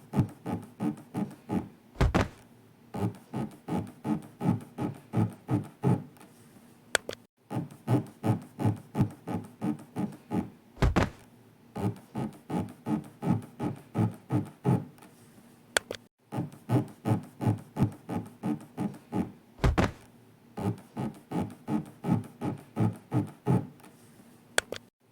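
A rubbing, scraping sound effect, 'zuri-zuri', repeats in short even strokes about three a second, paced to an imagined elevator floor sliding along the body's inner wall. A deep thump twice marks the floor landing at the bottom, and the runs break off briefly about every nine seconds, setting a slow breathing cycle.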